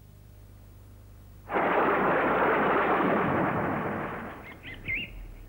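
Advert sound effects: a sudden loud thunderclap about one and a half seconds in, rumbling away over about three seconds, then a few short high bird chirps near the end.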